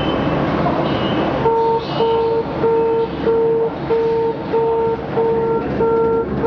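Metro door warning beeper sounding a steady repeated mid-pitched beep, about one and a half beeps a second, starting about a second and a half in: the signal that the doors are closing. It sounds over steady station platform noise.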